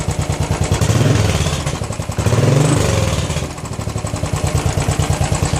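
Royal Enfield Continental GT motorcycle engine idling through its stock exhaust with the standard sports muffler, with a steady pulsing beat. It is revved twice, about a second in and again near halfway, then drops back to idle.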